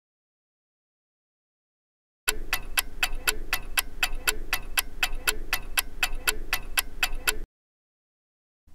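Ticking clock sound effect for a countdown timer: evenly spaced sharp ticks, about four a second, over a low hum. It starts about two seconds in and stops suddenly about a second before the end.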